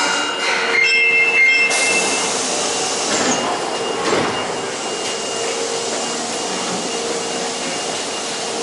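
Osaka Metro 22 series subway train standing at the platform with a steady hiss and hum. A sudden loud hiss starts about two seconds in.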